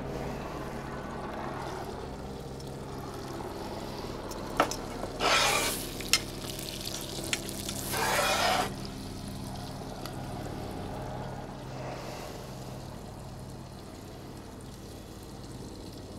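Ooni Koda 12 gas pizza oven's burner running on low with a steady hum, and butter sizzling in the steak pan inside. There are a few light clicks, and two short loud hisses about five and eight seconds in.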